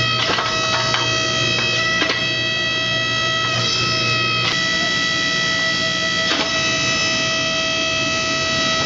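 Background music with held, droning notes and a few struck accents.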